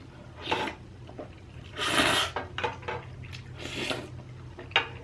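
Eating sounds at a close microphone: three short scraping, rustling noises, the middle one loudest, and a sharp click near the end, from utensils against a dish.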